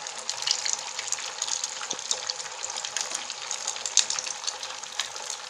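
Stuffed semolina kachoris deep-frying in hot oil over high flame: a steady sizzle peppered with many small crackling pops.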